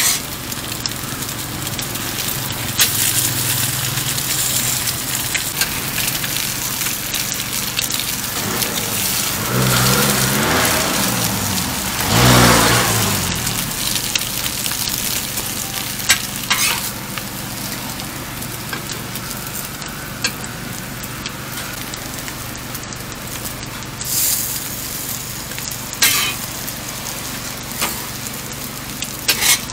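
Eggs, buns and pork jerky sizzling steadily on a flat steel griddle, with sharp scrapes and clicks of a metal spatula on the griddle a few times. About ten seconds in, a louder pitched hum swells and fades over a few seconds.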